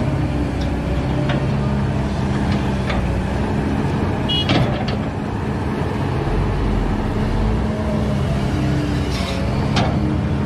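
Diesel engine of a Kobelco hydraulic excavator running under working load, its pitch stepping up and down, with sharp metallic clanks several times, the loudest about halfway through.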